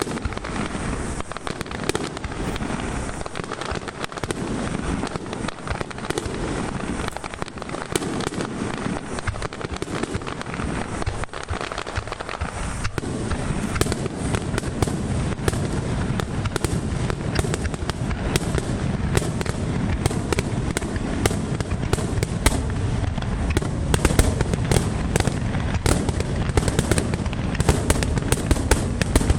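Fireworks display: a continuous barrage of booming bursts and crackling. It grows denser and louder from about halfway through, with many sharp cracks.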